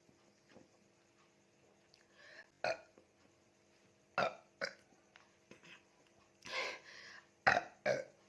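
A woman burping repeatedly from drinking Coca-Cola: about six short burps with gaps between them, a longer one in the middle and two quick ones close together near the end.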